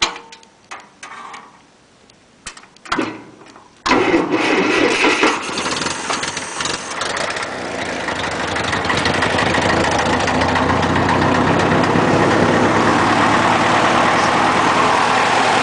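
A few clicks and knocks, then about four seconds in the 1958 Massey Ferguson MF-50's Continental Z134 four-cylinder gasoline engine fires at once on a cold start, jump-started from a car because its own battery is worn out. It keeps running, growing a little louder and settling into a steady run.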